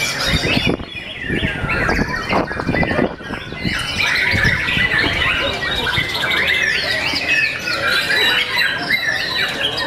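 White-rumped shamas (murai batu) singing all at once, a dense tangle of rapid whistled phrases, trills and chatter that never lets up. A few low knocks come in during the first three seconds.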